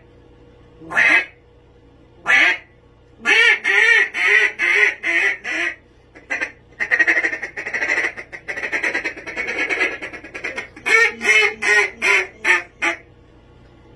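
Havoc Calls Villain duck call blown as a mallard hen routine: a couple of single quacks, a run of quacks, a fast rolling chatter of a feed call, then a closing run of quacks that stops a second before the end.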